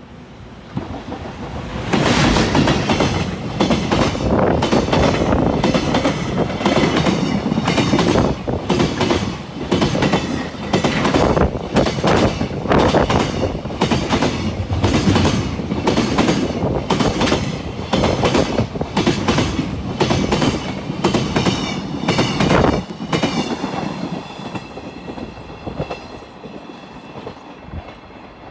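A JR Freight EF510 electric locomotive and its train of container wagons pass at speed, the wheels clattering over the rail joints in a steady, repeating rhythm. The noise builds over the first two seconds and drops away about 23 seconds in, leaving a faint high ringing as the train recedes.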